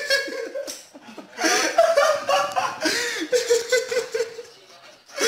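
A person laughing hard in two bouts: a short one that breaks off just under a second in, then after a brief pause a longer run of high, wavering laughter that fades near the end.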